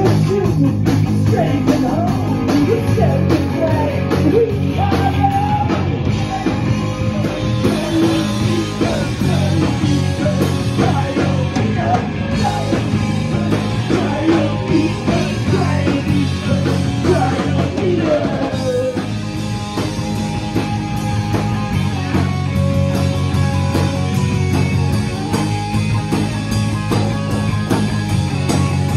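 Live punk rock band playing loud: distorted electric guitar, bass guitar and drum kit. A wavering lead line bends up and down through the first two thirds, then steadier held chords follow.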